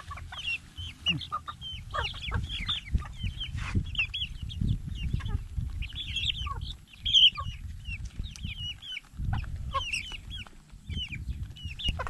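A flock of young chickens making many short, high chirping calls and clucks, one after another, over a low rumble.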